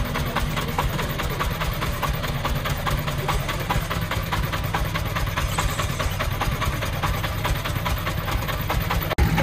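Diesel engines idling steadily with a fast, even knocking beat: the three-wheeled công nông truck's diesel and the mini excavator's engine, which is loading sand into it.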